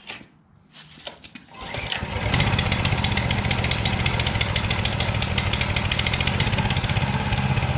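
Coleman mini bike's 200cc single-cylinder four-stroke engine pull-started cold on choke: a few clicks, then it catches on the first pull about a second and a half in and runs steadily at a fast idle.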